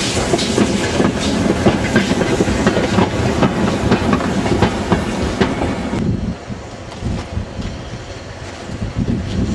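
A short goods train of four-wheeled wagons rolling past close by, the wheels clattering over the rail joints. About six seconds in the sound cuts abruptly to a quieter, more distant rumble of the steam tank locomotive pulling the train away.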